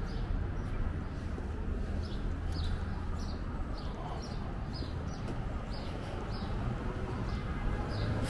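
City street ambience: a steady low traffic rumble, with short high clicks about twice a second.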